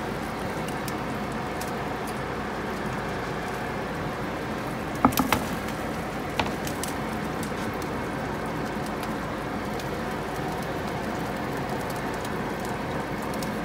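Steady hissing from a stove's built-in fish grill heating up with its rack pulled out, with a few sharp metallic clicks about five seconds in and one more a second or so later as fish are laid on the wire rack.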